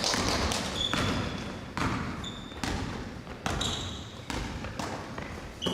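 A ball thumping on a gym floor at roughly one bounce a second, with short high squeaks of sneakers on the court between bounces.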